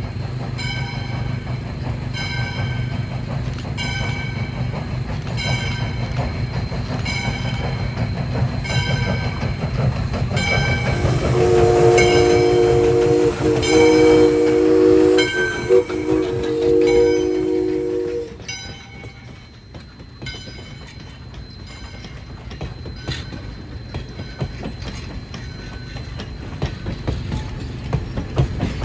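Valley Railroad's 1920 2-8-2 Mikado steam locomotive #40 approaching with its bell ringing about once a second, then blowing its chime steam whistle for about seven seconds, broken by brief gaps, as it passes. After the engine goes by, the bell and whistle stop and the passenger coaches roll past with clicking wheels over the rail joints and a low rumble.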